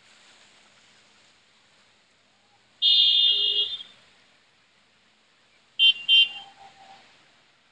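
A loud, high electronic tone lasting about a second, then, some three seconds later, two short sharp beeps close together.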